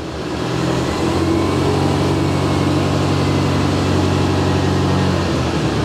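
Forklift engine running steadily under load as it lifts a compact tractor on straps, with a brief dip near the end.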